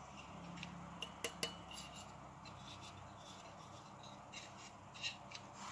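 Light metallic clicks and clinks from handling the metal sector antenna plate of a TP-Link CPE220: three quick taps about a second in, one leaving a short ring, and another near the end.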